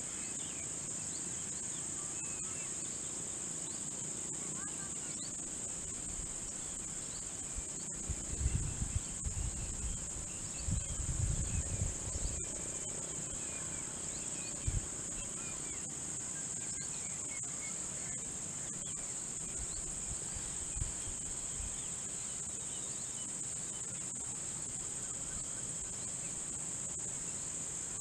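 Steady, high-pitched chorus of insects trilling without a break. A few low bumps come through around the middle.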